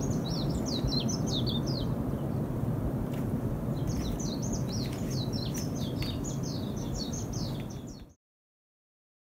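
Low, steady rumble of rockfall crashing down the steep walls of Kilauea's Halemaumau crater after a summit collapse/explosion event. Small birds chirp in quick series over it. All sound cuts off abruptly about eight seconds in.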